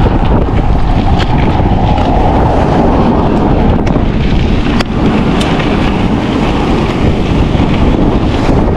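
Strong wind blasting across the microphone while cycling: a loud, steady rumbling rush, with a few sharp ticks scattered through it.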